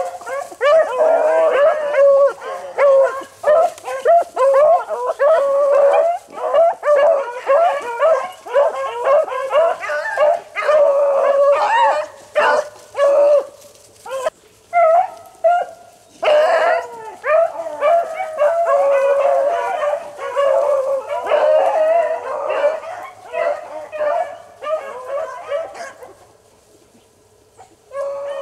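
A pack of rabbit-hunting hounds baying and howling, many voices overlapping, as they run a rabbit's scent trail. The cries break off briefly near the end, then start again.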